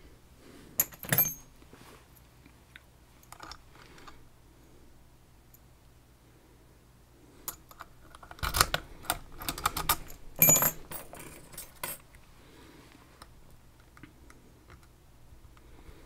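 Metal lock picks and tension wrench clicking and rattling in a Banham lock as it is being picked, with scattered sharp metallic clicks and a busier run of them in the middle.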